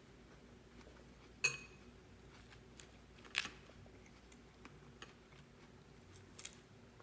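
Close-miked eating sounds: a utensil clinks once against a dish about a second and a half in, ringing briefly, then soft chewing and mouth clicks with a louder bite near the middle.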